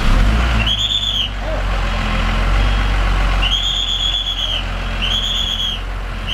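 Bus engine running at low revs as the bus manoeuvres, with three separate high-pitched squeals, each lasting about half a second to a second.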